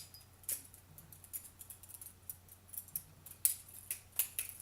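Butterfly knife being flipped: its metal handles and pivots click and clack sharply and irregularly, a couple of times a second, as it spins open and shut in the hand.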